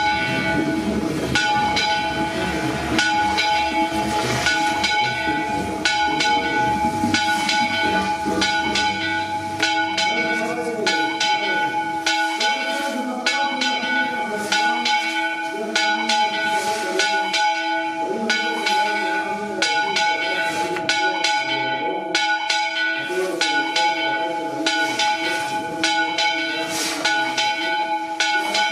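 Church bells ringing, struck over and over about two to three times a second. The fixed tones ring on and overlap into a continuous clangour.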